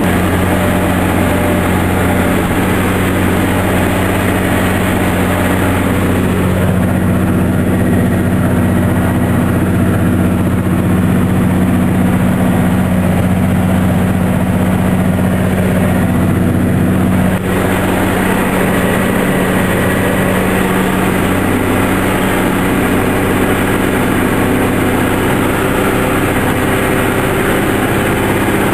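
John Deere 4755 tractor's six-cylinder turbo diesel running steadily, heard from inside the cab while it pulls a disc harrow through corn stubble. The tone shifts slightly after a short break a little past halfway.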